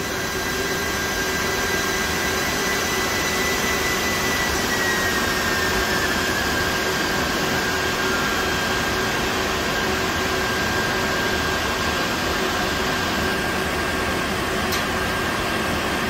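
Rack-mounted server's cooling fans running at a steady rush with a few whining tones. About four seconds in, one whine falls gradually in pitch, as one fan slows, and then holds steady.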